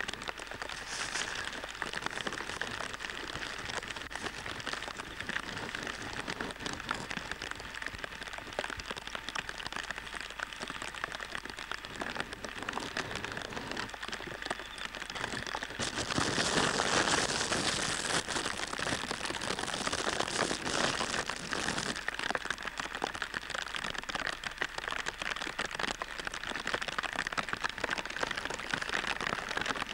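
Steady rain pattering, with a louder, fuller stretch for several seconds a little past halfway.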